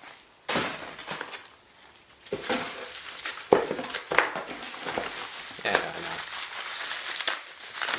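Bubble wrap and plastic packaging crinkling and rustling as items are handled and lifted out of a cardboard box, in irregular bursts with sharp crackles, busier after the first couple of seconds.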